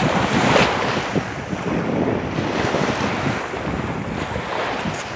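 Gusty storm wind buffeting the microphone over choppy waves washing and splashing along the shoreline.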